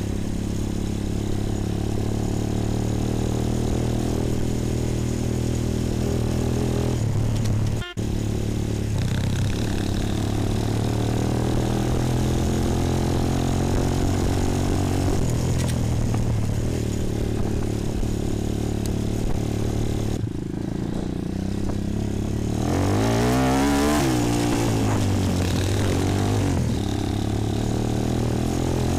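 Bashan 250 quad's single-cylinder four-stroke engine running under way, heard from the rider's seat, with a brief dropout about eight seconds in. A little past two-thirds through, the engine's pitch swings up and down several times as it is revved.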